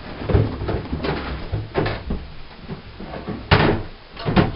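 Wooden bathroom vanity cabinet doors knocking open and shut as someone rummages under the sink, a string of knocks and bumps. The loudest comes about three and a half seconds in, followed by two more in quick succession near the end.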